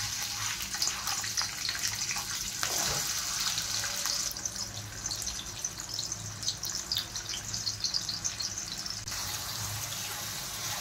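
Chopped onion sizzling and crackling in hot oil in a steel kadhai, a steady hiss with scattered pops. Near the end a steel spatula stirs it.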